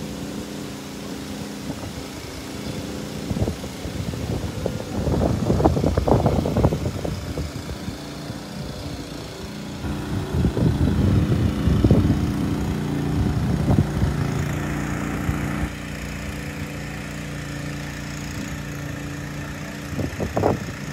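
An engine running steadily, a low even hum. Two louder stretches of low rumbling noise come over it, about five seconds in and again about ten seconds in.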